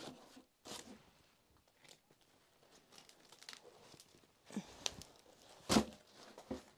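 Scattered crunching and tearing noises of something being handled, with a sharp crack near the end.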